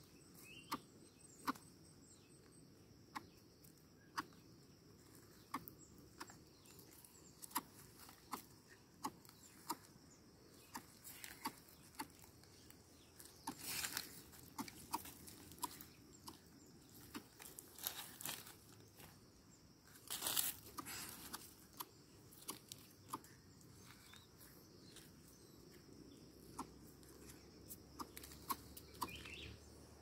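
Irregular soft ticks and scuffs of plastic sandals stepping on dry ground, twigs and dead leaves, with two louder rustles about fourteen and twenty seconds in. A faint steady insect drone sits underneath.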